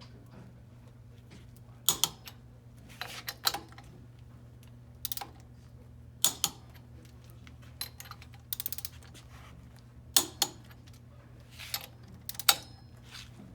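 Hand tools working the steel bonnet nuts of a valve: scattered sharp metal clicks and clinks, with a quick run of ratchet clicks about two thirds of the way through, over a steady low hum.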